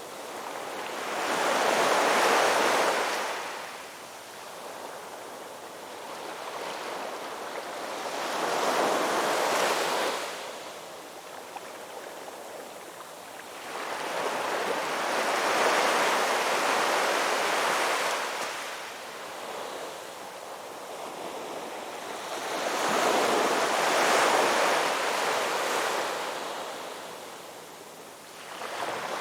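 Ocean surf: waves breaking and washing up the shore in four slow swells, about one every seven seconds, with a softer steady wash between them.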